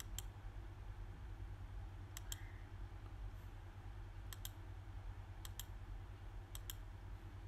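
Computer mouse clicking: about five clicks a second or two apart, most heard as a quick double tick of button press and release, over a steady low hum.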